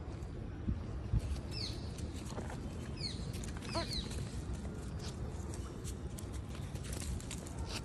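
Steady low outdoor rumble with a few short, high, falling chirps between about one and a half and four seconds in, and a lower falling squeak near four seconds: small animal calls.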